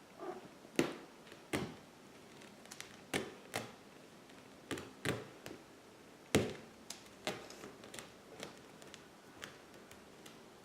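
Irregular light taps and clicks, about a dozen, with no steady rhythm.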